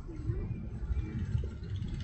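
Steady low outdoor rumble, with a few faint, short high chirps over it.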